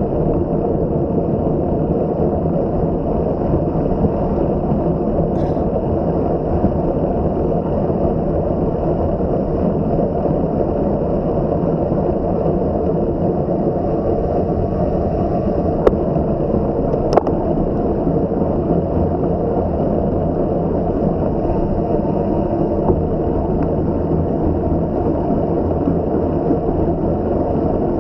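Steady rushing wind and rumble on a camera microphone carried on a moving mountain bike, with two sharp clicks a little past halfway.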